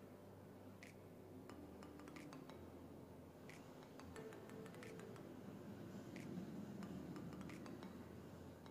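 Near silence with faint, scattered light clicks and taps from a makeup applicator and a plastic eyeshadow palette being handled.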